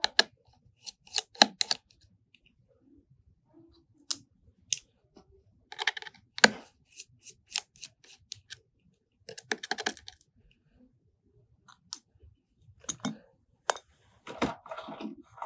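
Scattered small clicks and light metallic ticks, single and in short clusters, from repair tools and tiny screws: a tri-point (Y-tip) screwdriver taking screws out of a metal shield inside an opened iPhone XS Max.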